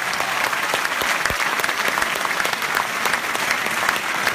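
Large audience applauding: dense, many-handed clapping at a steady level.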